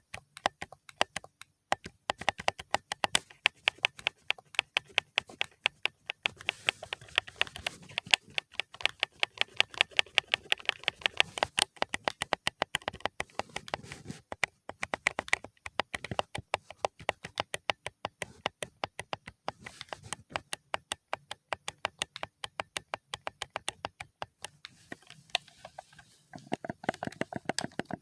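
ASMR tapping on a hard object: a quick, steady run of small sharp taps and clicks, many a second, with a brief pause near the start.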